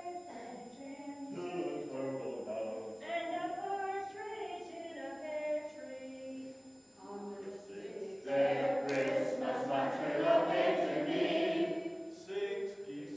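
A small group of older adults singing together unaccompanied, swelling louder and fuller about eight seconds in.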